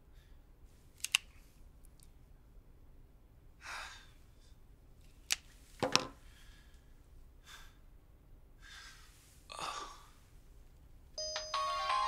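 Mobile phone ringtone: a melodic electronic tune that starts suddenly near the end and is the loudest sound. Before it, quiet room tone with a few small clicks of the handset, a sigh, a knock as the phone is set down on the desk around the middle, and another breath.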